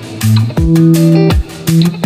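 Background instrumental music: a run of plucked notes over a bass line, each note starting sharply and held.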